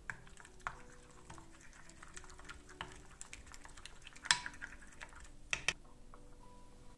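Wooden spoon stirring a creamy mayonnaise-and-ketchup sauce in a glass bowl, with irregular clicks and taps of the spoon against the glass. The loudest tap comes about four seconds in, and two more come around five and a half seconds.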